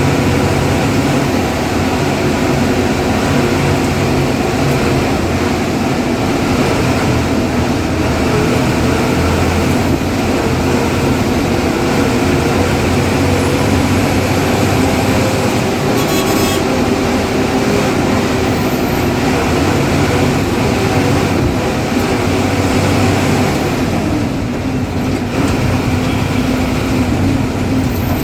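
Ashok Leyland diesel bus engine running steadily under load at road speed. It eases off briefly about 24 seconds in, and there is a short sharp sound about halfway through.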